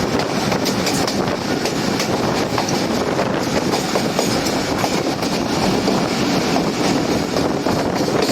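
Train running along the track: a steady rumble and rush of moving air, with the wheels clicking over the rail joints.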